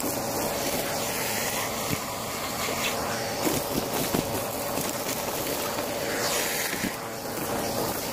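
Vacuum cleaner running with a steady whine while its hose nozzle sucks up small hard bits of debris from a shag rug, which crackle and rattle irregularly as they go up the hose. The audio is sped up to double speed.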